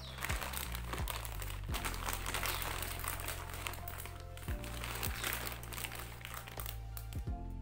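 Clear plastic packaging bag crinkling as it is handled, a dense run of small crackles that stops shortly before the end, over calm electronic background music.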